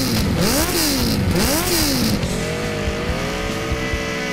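Sport motorcycle engine revved in three quick blips, each rising and falling in pitch, then running at a steady speed that drops slightly near the end.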